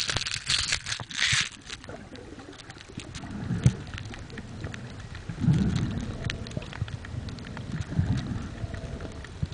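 Water picked up by a submerged camera: hissy splashing and bubbling near the surface for the first second or so, then muffled underwater rumble with faint clicks and a few soft low surges.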